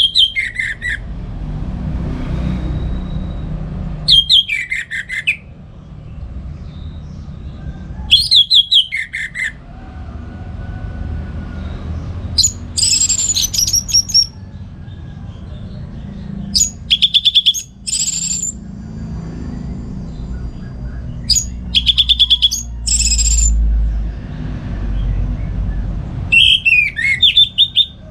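Orange-headed thrush singing in full song: loud phrases of rapid, high chirping notes, one every four seconds or so, over a steady low rumble.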